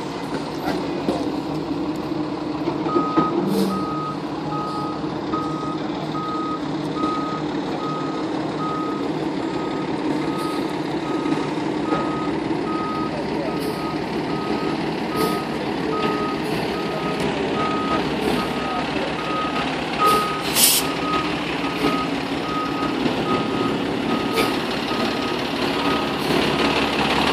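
FDNY fire engine backing up: its reversing alarm starts about three seconds in and beeps steadily on one pitch, about two beeps a second, over the truck's engine running. A short hiss comes once, about two-thirds of the way through.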